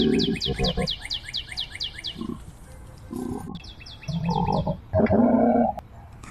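Low animal grunts and growls in several short bouts, the loudest near the start and about five seconds in. Behind them runs a fast series of high, falling chirps that breaks off twice.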